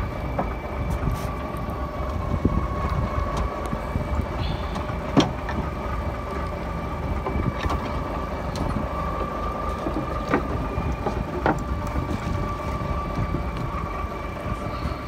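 Small fishing boat's engine running steadily with a low rumble, broken by a few sharp clicks or knocks, the loudest about five seconds in.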